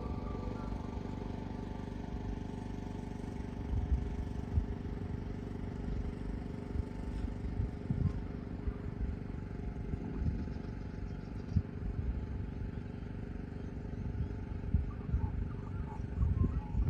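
A vehicle running with a steady low rumble and irregular low bumps and knocks.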